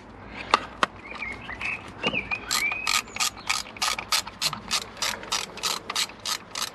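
Hand ratchet with an Allen bit undoing a crankcase vent valve's last retaining screw. A few scattered clicks, then from about two and a half seconds in a steady run of pawl clicks, about four a second, as the handle is swung back and forth.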